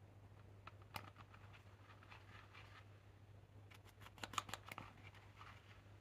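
Pressed powder makeup being crushed and scraped in its palette pans with the metal end of a lipstick tube: faint scratching and crumbling with sharp little taps, one about a second in and a quick cluster of them about four seconds in, over a faint low hum.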